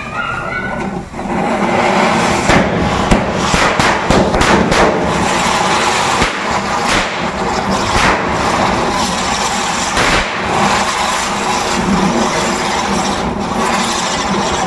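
Diwali firecrackers burning: a loud, steady hiss shot through with many sharp crackles and pops that keeps going until the very end.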